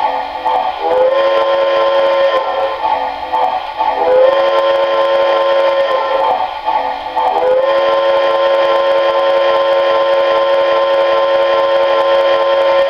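Electronic steam-whistle sound from a Lionel 390E standard gauge toy steam locomotive, blown three times: two blasts of a second or so each, then a long one starting past the middle. Each blast slides up slightly in pitch as it begins.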